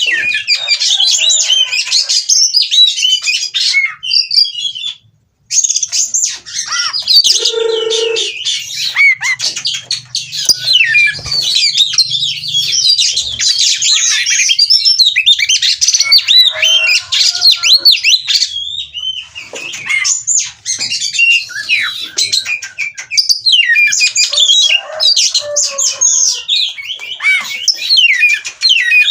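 Oriental magpie-robin (kacer) singing a fast, varied stream of loud whistles and chirps, the excited song of a bird in breeding condition, with a short break about five seconds in.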